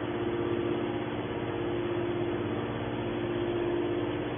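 Hydraulic scrap aluminium baler's pump unit running, a steady hum with one strong constant tone.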